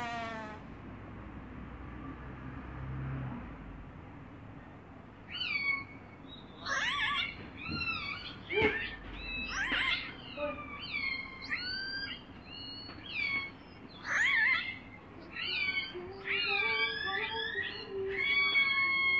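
Recorded killer whale (orca) calls: a run of high whistles and calls that slide up and down in pitch, coming in bursts from about five seconds in. Before them, a faint low rumble from the end of a walrus recording.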